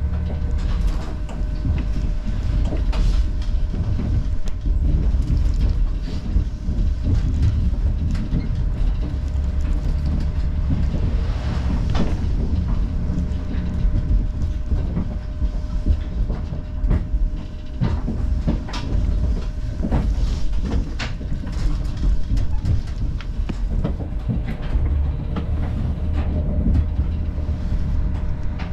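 Diesel railcar running along the line, heard from inside the car: a steady low rumble with irregular clacks of the wheels over rail joints and points.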